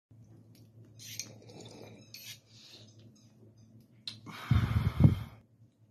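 A man smoking a joint: a few faint hissing, crackling draws, then a loud breathy exhale of smoke about four seconds in, with two heavy puffs about half a second apart.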